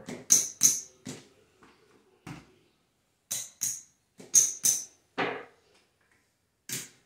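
Casino chips clacking as they are set down and stacked on a craps table, placing bets: about ten sharp clicks at uneven intervals.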